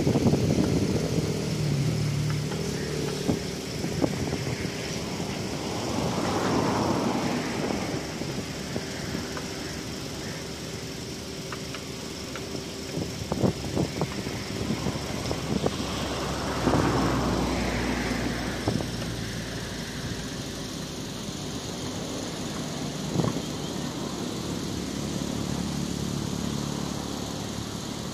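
Distant car engine of a Subaru XV Crosstrek driven hard across a dusty dirt field, rising and falling twice as it accelerates, over a steady rushing noise with a few sharp clicks.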